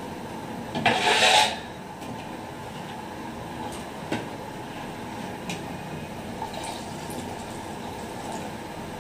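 A large aluminium pot lid is pulled off with a brief loud metallic scrape about a second in, then a long metal ladle stirs thick, wet mutton masala in the pot, squelching, with a few sharp knocks of the ladle against the pot's side.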